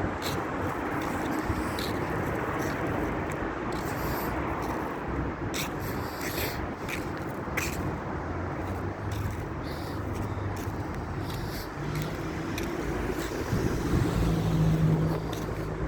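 Diesel engine of an XCMG XZ450 Plus horizontal directional drilling rig running steadily, with scattered clicks and knocks. About thirteen seconds in, its note steadies higher and gets louder.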